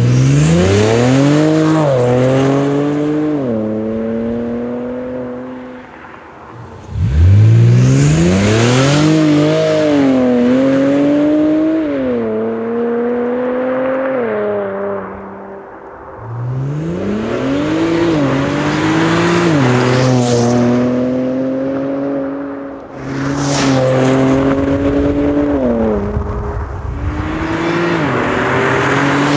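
Exhaust of an Infiniti Q50's 3.0-litre VR30DDTT twin-turbo V6 through a Fast Intentions cat-back with 10-inch sport mufflers, in four hard acceleration runs past the listener. Each run is a rising engine note broken by upshifts, where the pitch drops and climbs again.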